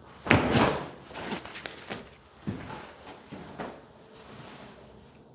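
Chiropractic adjustment thrust delivered on the exhale: a sudden loud crack and thud about a third of a second in, followed by several smaller cracks and knocks over the next few seconds.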